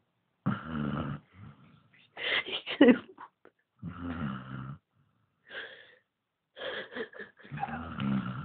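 Basset hound snoring in deep sleep: a run of rasping, wheezy snores, one with each breath, coming about every one to two seconds.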